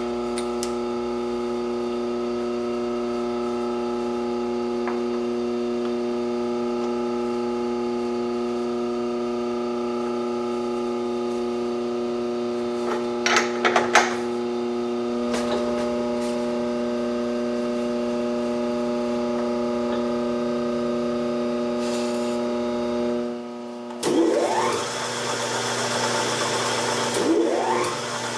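Steady electric hum from the shop machinery, with a few sharp metallic clicks about 13 to 14 seconds in as the block is set up in the milling vise. About 24 seconds in the hum gives way to the milling machine's spindle turning a boring head that cuts a counterbore in an aluminum block, a rougher, noisier sound.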